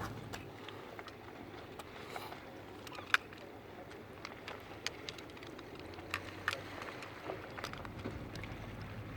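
Waterside outdoor ambience: a low, steady wash of noise with irregular sharp clicks and knocks, the loudest about three seconds in.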